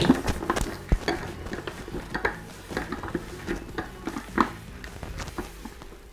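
Scattered light clicks, knocks and rubs of a plastic desk globe being handled and turned by hand, a few louder taps among them.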